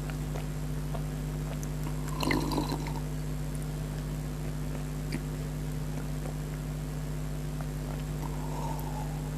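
A person eating mango: a short slurping mouth sound about two seconds in and a fainter one near the end, over a steady low hum.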